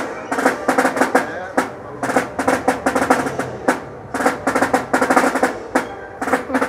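Snare drum struck with a pair of sticks, played in quick runs of strokes and rolls broken by short pauses.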